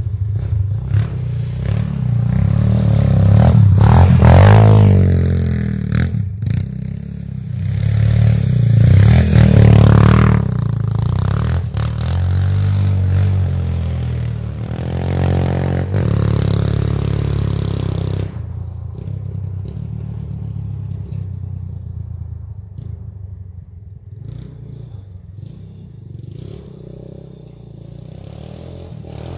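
1985 Honda ATC 200X three-wheeler's single-cylinder four-stroke engine revving as it is ridden, pitch rising and falling with the throttle, loudest about four and ten seconds in. After about eighteen seconds it runs quieter.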